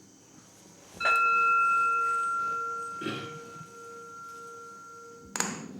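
A bowl-shaped ceremonial bell struck once about a second in, ringing with a clear steady tone that slowly fades and stops about five seconds in. A sharp knock comes near the end.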